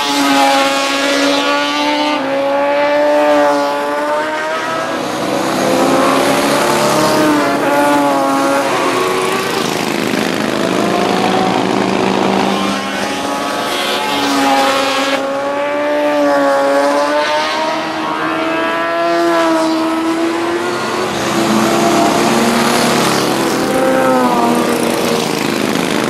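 Engines of several racing sidecar outfits at speed, their notes rising and falling in pitch and overlapping as the outfits pass one after another.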